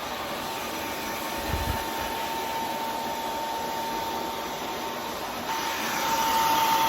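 Steady whooshing of an electric fan or blower motor with a constant high whine, getting louder about five and a half seconds in; a brief low thump about a second and a half in.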